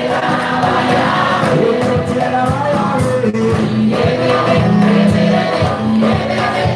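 Church praise and worship team of men and women singing a gospel song together, backed by a live band with a drum kit keeping a steady beat.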